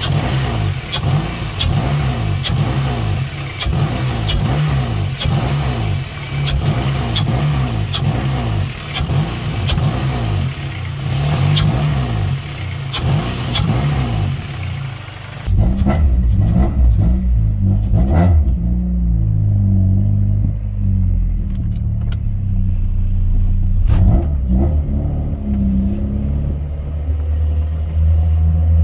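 Honda F23A 2.3-litre four-cylinder engine running, first at idle with frequent sharp clicks over it. About halfway through the sound changes suddenly to a louder, deeper engine note whose pitch steps up and down as the revs change.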